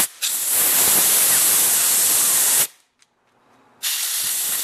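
Compressed-air blow gun blasting air through the small holes of a brass carburetor bowl nut to clear out loosened dirt. A brief puff is followed by a steady hiss of about two and a half seconds that cuts off sharply, and a second blast starts near the end.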